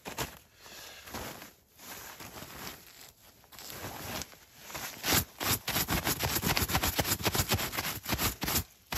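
Nylon shell of a down sleeping bag rustling and crinkling as it is pulled and handled. Sparse at first, then dense and louder from about five seconds in.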